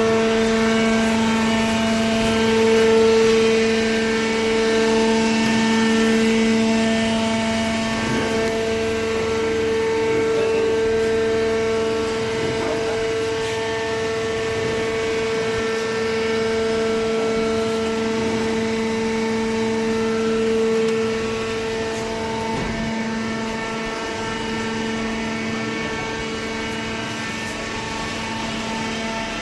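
Hydraulic power unit of a small cardboard baler running with a steady hum, with a few faint scrapes.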